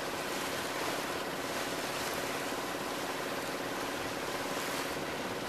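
Steady rush of wind and water on a sailboat under sail, with wind buffeting the microphone and a faint steady hum underneath.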